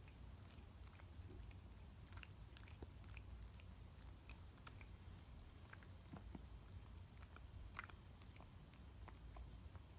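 Domestic cat licking its paw while grooming: faint, irregular clicks of the tongue and mouth, several a second.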